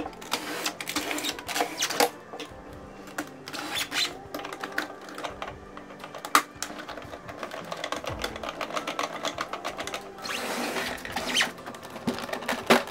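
Irregular plastic clicks and rattles from the casing and scanner unit of an Epson L-series ink tank printer being lifted and handled, with a brief scraping rustle about ten seconds in. Background music with steady held tones plays under it.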